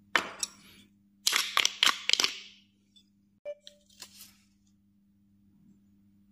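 Sharp wooden clicks and short scraping strokes from hand woodcarving on a small wooden figure: two clicks at the start, then a dense run of cuts and scrapes about a second in, with a few faint clicks after. A faint steady electrical hum sits underneath.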